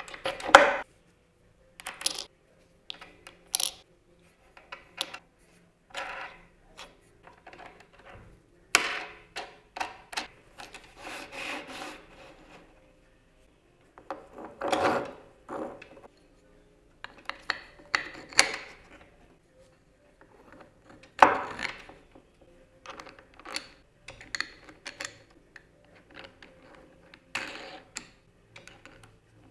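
Parts of a wooden tool-rest jig being handled and fitted together: irregular clinks, taps and knocks of wood and metal pieces (a metal plate, a threaded rod, washers and wing nuts) being set in place, with a few stretches of rubbing and sliding.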